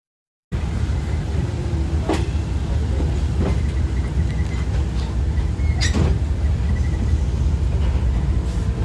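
A moving train heard from on board: a steady low rumble that starts abruptly about half a second in, with a few sharp knocks, the loudest about six seconds in.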